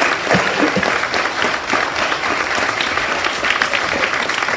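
An audience of schoolchildren applauding: a dense, steady clapping from many hands.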